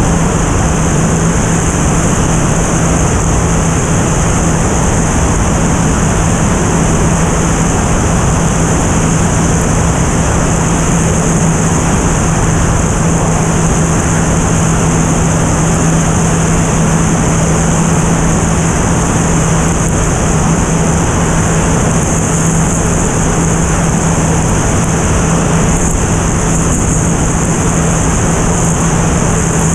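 Single-engine propeller airplane in steady cruise, heard from outside the airframe: an unchanging propeller and engine drone with a constant deep hum, under heavy wind rush on the microphone and a steady high hiss.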